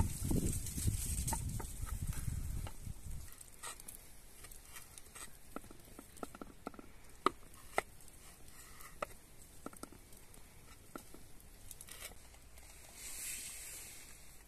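Kitchen knife cutting raw meat into chunks on a wooden cutting board, the blade knocking on the board in scattered sharp taps, two of them louder about halfway through. A low rumble in the first few seconds, and a brief scraping hiss near the end as the meat is scraped off the board into a bowl.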